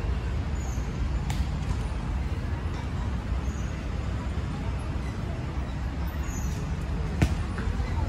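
Outdoor city park ambience: a steady low hum of distant traffic with faint voices of people nearby, and a single sharp click about seven seconds in.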